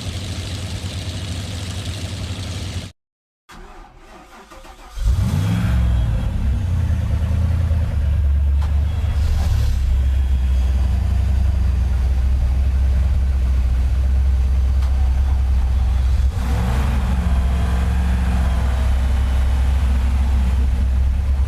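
Airboat engine and propeller running steadily, cutting off about three seconds in. A moment later an airboat engine starts, its pitch climbing, then runs loud and steady with a rev up and back down near the end.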